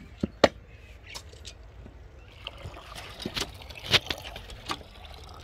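Sharp knocks of a shovel against a wooden cart loaded with soil. Then a hand pump being worked by its lever, water splashing into a metal bucket, with clanks from the pump, the loudest about four seconds in.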